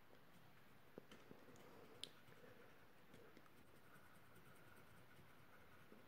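Near silence: room tone, with a faint tick about one second in and another about two seconds in.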